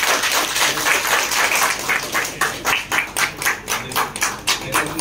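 A small group of people applauding. The clapping becomes a steadier rhythm of about four claps a second from about two seconds in.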